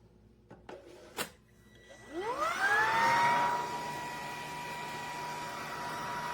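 A few clicks, then a BISSELL PowerClean cordless vacuum's motor starts up about two seconds in with a rising whine and runs steadily at a high pitch. It begins to wind down right at the end.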